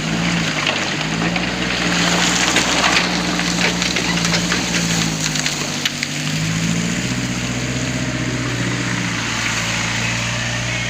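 Backhoe's diesel engine working, its pitch rising and falling and settling lower after about six seconds, with gritty scraping and crunching of sand and gravel, strongest in the first half.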